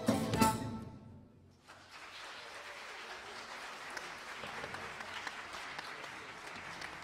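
A folk ensemble of cavals (long wooden shepherd's flutes) and violin plays its final notes, which stop sharply about a second in. After a brief hush, the audience breaks into steady applause.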